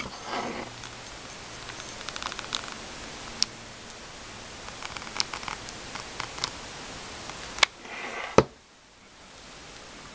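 Close handling noise from fingers twirling a beaded stick pin and pushing the beads up: scattered light clicks and brief rustles. There is one sharper knock about eight seconds in.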